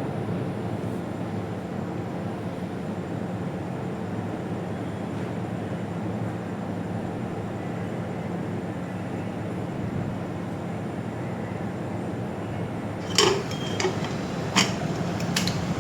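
Heavy rain falling steadily, a continuous even rush. Near the end, a few sharp clinks of dishes or utensils.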